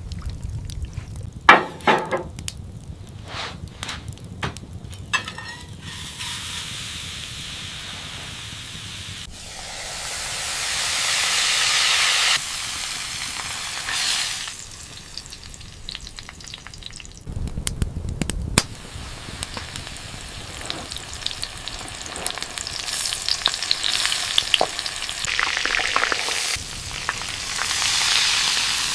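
Food sizzling as it cooks, the hiss swelling louder in waves, with sharp clicks and knocks in the first few seconds.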